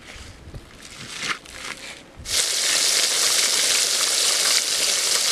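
Soft crunching rustle of a marinated chicken piece being pressed into a crushed crumb coating. About two seconds in, this gives way suddenly to a loud, steady sizzle of breaded chicken pieces deep-frying in hot oil.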